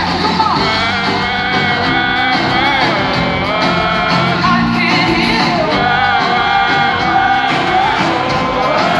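Arena crowd singing along loudly with a live band playing a pop-rock song, many voices in unison over drums and guitars, with shouts and whoops from the audience.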